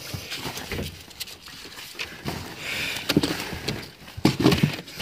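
Vinyl inflatable pool floats being pulled about and crumpled in a plastic storage box: irregular rustling and crinkling with many sharp crackles.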